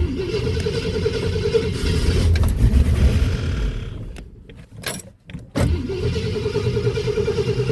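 1965 Ford Thunderbird's 390 V8 being started and running, then going quiet about four seconds in and being started again a second and a half later. The carburetor is flooding, pushing fuel out of the top, which the owner later puts down to stuck float needles.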